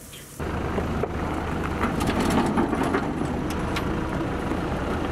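Farm tractor engine running steadily while it tows a metal fish transport tank, with a few light rattles; the sound comes in about half a second in.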